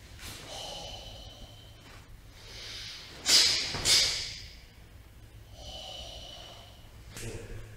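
A karateka's sharp, forceful breathing through a kata: two hard exhalations in quick succession about three seconds in, with quieter, longer breaths before and after.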